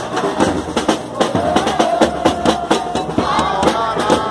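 Carnival street-band drums, a large bass drum and smaller drums struck with sticks, beating a steady rhythm. A long held melody note sounds over the drums in the middle, with crowd voices around.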